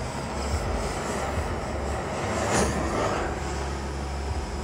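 Hand-held propane torch burning with a steady hiss, with a brief louder flare about two and a half seconds in.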